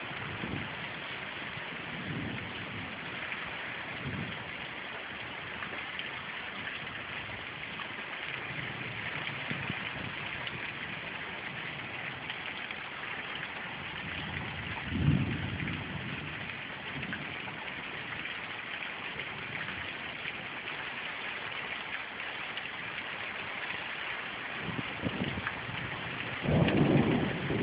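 Thunderstorm: heavy rain falling steadily, with a rumble of thunder about halfway through and a louder, longer rumble near the end.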